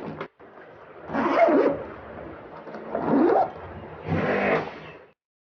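Small electric pressure-washer pump motor used for AC cleaning, running in three short bursts about a second and a quarter apart, its whine dipping and rising in pitch in each burst.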